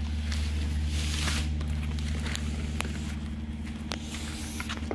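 A resin-soaked patch on its plastic-wrapped packer being pushed into a PVC pipe lying on a plastic tarp: plastic sliding and scraping, with a few sharp clicks, over a steady low hum.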